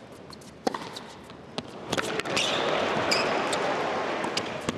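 Tennis ball struck back and forth by rackets in a rally on an indoor hard court, sharp cracks about a second apart, with short high shoe squeaks. About two seconds in, arena crowd noise swells and stays up over the rest of the play.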